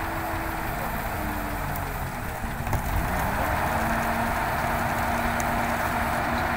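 Mobile crane's engine and hydraulics running steadily while the outrigger cylinder extends and presses its foot down onto steel pads. The sound grows louder about three seconds in and then holds steady.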